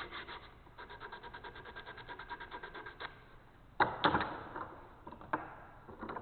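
Sandpaper rubbed quickly back and forth inside a hole in a 2x4 wood block, about eight strokes a second, stopping about three seconds in. Then come a few sharp knocks and clatters, the loudest near the middle.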